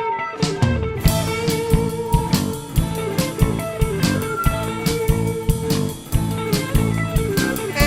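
Live blues band playing an instrumental passage with no singing. Electric guitar is prominent over bass and a steady drum beat.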